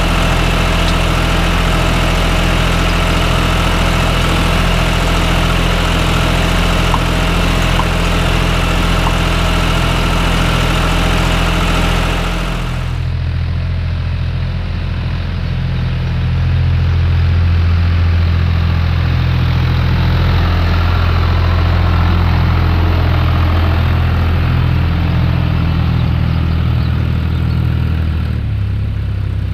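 Tractor diesel engine running steadily while ploughing. About halfway through the sound suddenly turns duller, and a few seconds later the low engine note grows stronger and louder.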